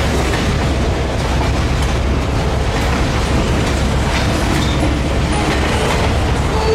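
Freight cars of a long train rolling past at close range: a steady, loud rumble with the clickety-clack of wheels over the rail joints.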